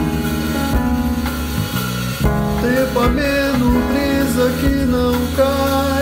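Band music with keyboard and a steady beat; about two and a half seconds in, a man's singing voice comes in with a wavering melody over it.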